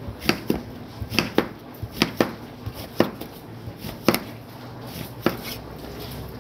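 Kitchen knife chopping down through watermelon rind and striking a plastic cutting board: about ten sharp knocks at an uneven pace, the first few in quick pairs, the last about five seconds in.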